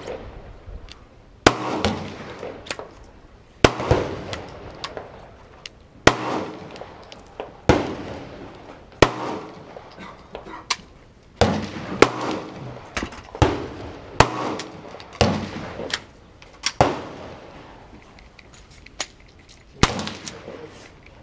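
Gunshots at a shooting range: a dozen or so single shots at an uneven pace, one every one to two and a half seconds, each sharp crack trailing off in an echo, with fainter cracks in between.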